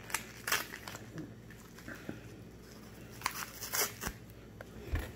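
Dry crunching and crinkling as a torn cardboard box of cornstarch is squeezed and shaken and the powdery starch breaks and pours out of it. It comes in a few short bursts, with a cluster about three and a half seconds in.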